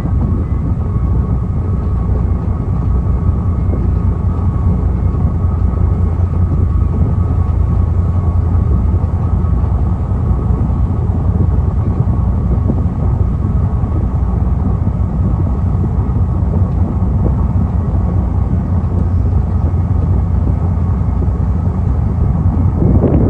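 The SEA PASEO cruise ferry running steadily under way. Its engines make a low rumble, with a faint, steady, higher hum over it.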